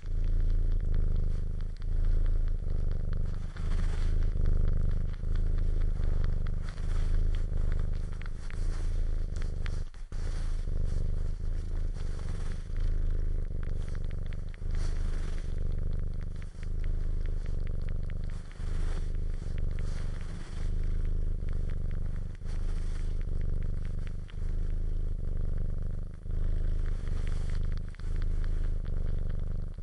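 Domestic cat purring, a low steady rumble that pauses briefly with each breath, about every second and a bit. Over it are small crackling clicks from the cat suckling.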